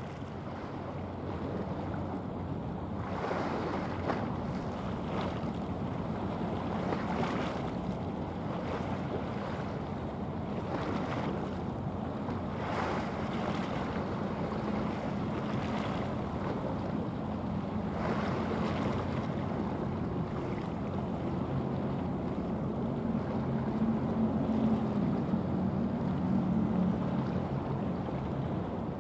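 Low steady drone of a passing bulk carrier's diesel engine, growing stronger toward the end, over water washing and gusts of wind on the microphone.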